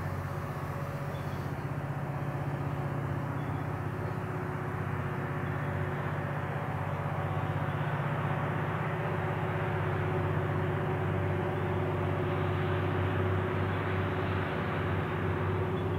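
V/Line A class diesel-electric locomotive A66 approaching from a distance: a steady low engine drone that grows gradually louder.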